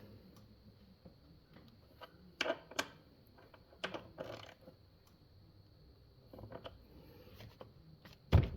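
Scattered clicks and light knocks of parts and tools being handled while hoses and connectors are refitted around the intercooler, ending in one louder thump.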